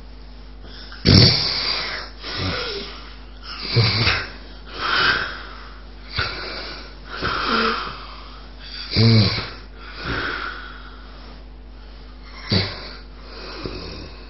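Loud, harsh snoring of a man with obstructive sleep apnea. The snoring breaks in about a second in after quiet. It comes as about five loud snores, each followed by a softer one a second or so later, roughly every three seconds.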